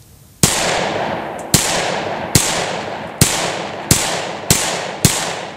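Compensated Glock 31C pistol in .357 SIG fired seven times at a steady, unhurried pace, each shot trailing a long echo.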